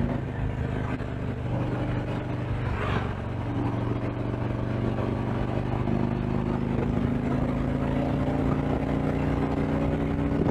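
A Harley-Davidson Street Glide Special's V-twin engine running on the road. The engine note eases off about two seconds in, then climbs slowly as the bike picks up speed, with a brief rush of noise about three seconds in.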